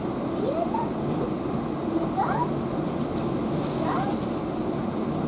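Steady running rumble inside a moving passenger train carriage, with three short rising high-pitched cries over it.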